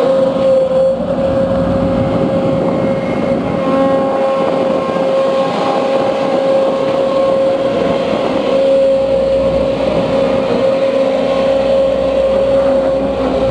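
Case CX210B hydraulic excavator's engine and main hydraulic pump running, with a steady whine held at one pitch over the engine noise. The pump is reported to howl and the machine to lose power after about five minutes of work, which the mechanic suspects is a noisy main pump.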